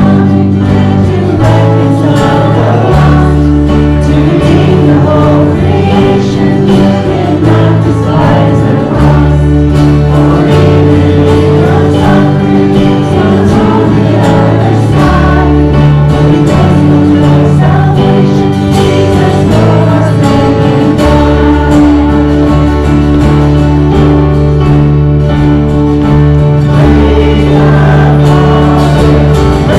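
Live congregational worship singing with band accompaniment, sung voices over held bass chords that change every few seconds.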